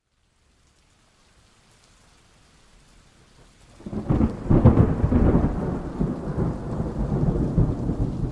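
Thunderstorm: a faint hiss of rain swells, then thunder breaks suddenly about four seconds in and rolls on loudly over the rain.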